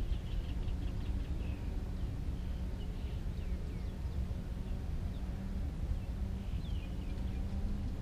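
Small birds chirping in short, quick, falling notes, thickest in the first couple of seconds and again about seven seconds in, over a steady low rumble.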